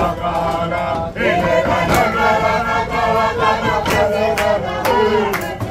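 Background music of a group of voices singing or chanting together, with drum strikes every second or so.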